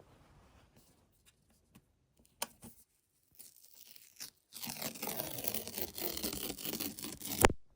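Paper pull-tab seal strip being torn off a MacBook Pro box: a few faint rustles and clicks, then a steady tear of about three seconds that ends in a sharp snap as the strip comes free.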